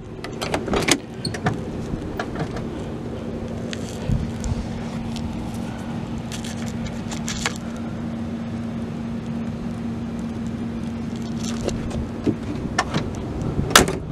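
Car doors and chrome door handles of a 1963 Chrysler New Yorker wagon being worked by hand: scattered clicks and clunks of the latches and handles, the loudest clunk near the end. A steady low hum runs underneath and fades out about two seconds before the end.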